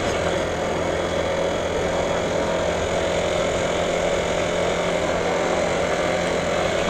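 Yamaha motorcycle engine running at a steady note while cruising, with wind and road noise over it.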